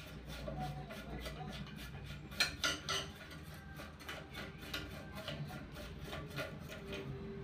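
Clicking and scraping of a toilet cistern's flush handle being worked and tightened against the ceramic tank, with a few sharper clinks about two and a half to three seconds in.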